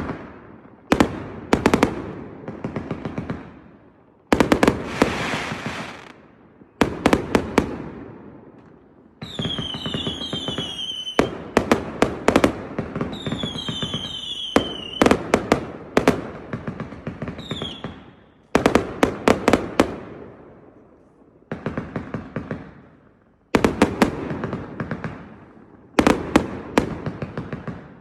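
A 318-shot fireworks cake firing in rapid volleys of shots and bursts, each volley trailing off into a fading crackle. A few times, around ten and fourteen seconds in, whistles with a falling pitch sound over the shots.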